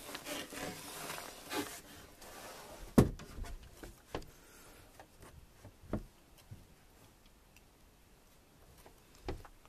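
Wooden berth infill sections being handled in a small boat cabin: rubbing and shuffling, then a sharp knock about three seconds in and lighter knocks a few times after, growing quieter towards the end.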